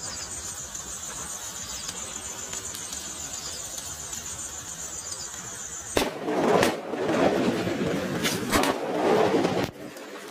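A chain of Mori firecrackers going off: a sudden bang about six seconds in, then several seconds of dense crackling and fizzing with a few sharper bangs, easing briefly near the end.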